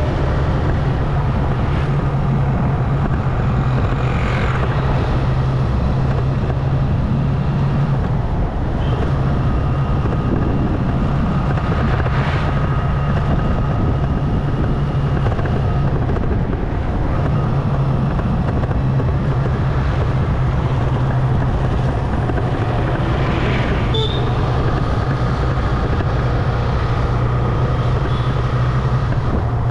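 Motorbike engine running steadily while riding, with road and wind noise; its low hum dips briefly twice.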